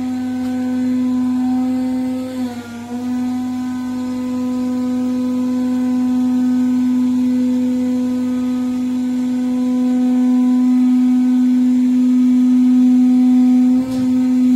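A steady, loud machine hum with one strong pitch. It dips briefly and drops slightly in pitch about two and a half seconds in, then holds steady.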